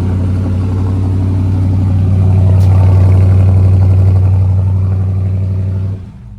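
Dodge Charger's engine running steadily at idle with a deep, even note, swelling slightly in the middle and cutting off suddenly near the end.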